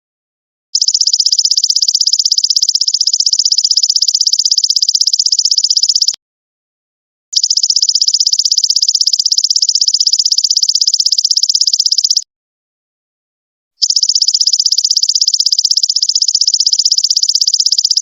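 Belalang emas (golden locust) insect calling in a fast, even, high-pitched buzzing trill. It comes in three long bouts of about five seconds, each starting and stopping abruptly, with short silences between them.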